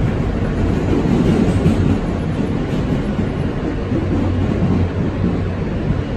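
R160 subway car running along the track, heard from inside the car: a steady rumble of wheels on the rails with a low hum under it.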